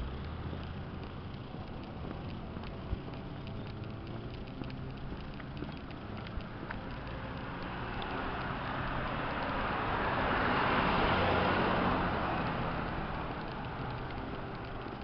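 A car driving past on the street: its tyre and engine noise builds about eight seconds in, peaks a few seconds later and fades away, over steady outdoor background noise.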